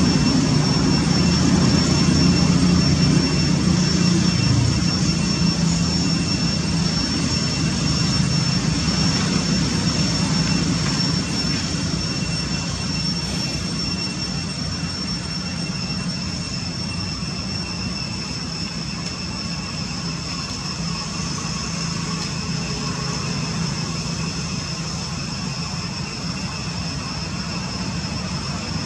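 A distant engine's steady low rumble that fades over the first several seconds, with a thin, steady high-pitched whine throughout.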